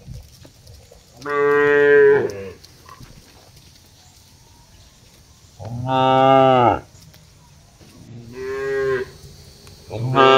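A cow mooing: three long moos of about a second each, a few seconds apart, with a fourth starting near the end.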